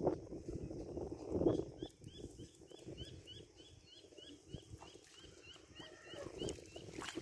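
A bird repeating a short high chirp about three times a second, over low rumbling noise, with a louder low noise about a second and a half in.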